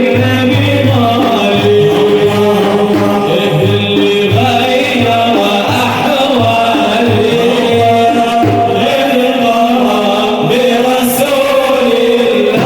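Sufi devotional chanting in praise of the Prophet, male voices singing over a steady, regular hand-drum beat.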